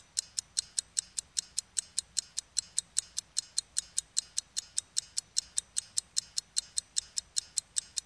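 Stopwatch ticking: a rapid, even run of sharp ticks, about five a second.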